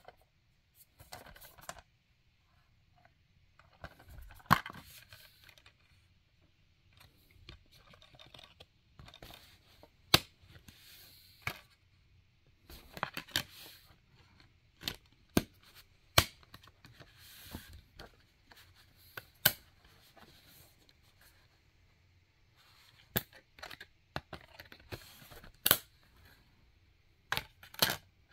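A metal Blu-ray steelbook case being handled and opened and its discs touched by hand: scattered sharp clicks and taps among rustling and scraping.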